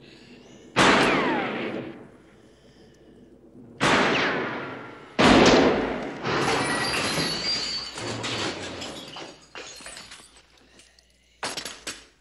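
Handgun shots fired in a confined hallway: loud sharp cracks with long echoing tails, about a second in and again near four and five seconds. A longer stretch of further blasts and commotion follows, then two quick cracks near the end.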